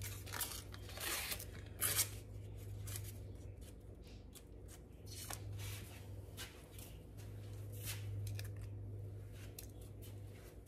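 Paper butter wrapper rustling and crinkling as a stick of butter is peeled out of it, busiest in the first few seconds. A steady low hum runs underneath.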